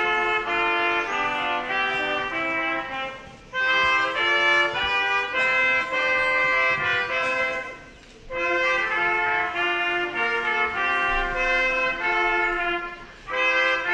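A small brass ensemble of trumpets playing a piece in harmony, several held notes sounding together, in phrases of about four to five seconds with short breaks between them.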